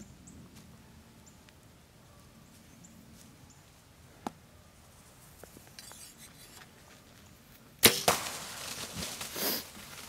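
A bow shot at a doe at close range, about eight seconds in: one sharp crack of the string release and the arrow hitting, followed by the deer bolting away through dry leaves for a couple of seconds.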